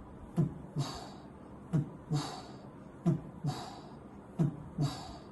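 Recorded heart sounds of aortic regurgitation: four slow heartbeats, each a pair of low first and second heart sounds, with a soft early diastolic murmur after every second sound, a high hiss that quickly fades.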